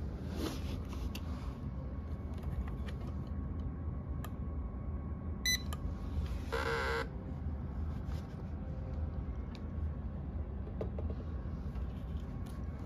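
Handheld barcode scanner beeping briefly as it reads a student ID card, followed about a second later by a longer electronic confirmation tone, over a steady low room hum.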